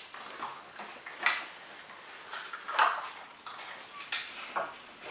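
Rolled paper draw slips being unrolled by hand: soft rustling broken by a handful of short, sharp crinkles.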